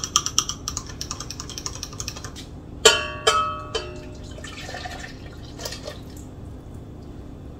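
An egg being beaten into milk in a glass measuring cup, the utensil clinking quickly against the glass. About three seconds in come a few sharp, ringing clinks. Then the liquid pours into a stainless steel mixing bowl.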